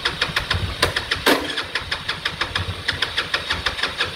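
Rebuilt Yamaha Cygnus-X scooter's single-cylinder engine turning over and firing unevenly in a fast chain of beats, with a louder pop about a second in, as it struggles to start; the owner can't tell what the problem is.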